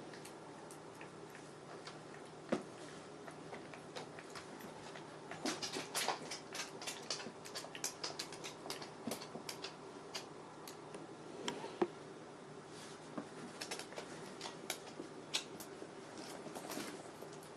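One-month-old puppies moving about: scattered light clicks and taps, thickest for a few seconds near the middle, over a faint steady hum.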